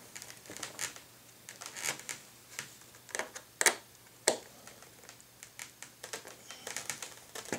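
Small screwdriver turning the screws that hold plastic wing struts to an RC plane's wing: a scattering of light, irregular clicks and ticks as the tip works in the screw heads.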